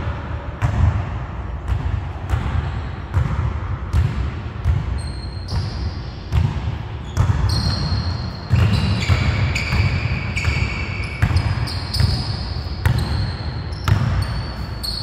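Basketball dribbled on a hardwood gym floor, the bounces coming steadily about every half second. From about five seconds in, sneakers squeak on the wood in short high squeals between the bounces.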